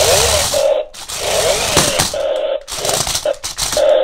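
Toy RC stunt car's electric drive motors and gearboxes whirring and rattling as it drives over a laminate floor, the whine sweeping up and down with speed in short spurts that cut off abruptly.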